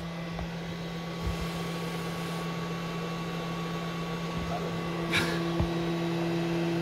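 Makita battery chargers with their cooling fans running, a steady hum while the batteries charge. A second, higher steady tone joins about two-thirds of the way through.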